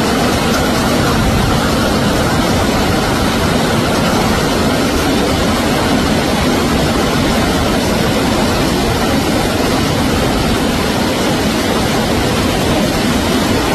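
Heavy hailstorm: hailstones and rain pelting down, a loud, steady rushing noise with no let-up.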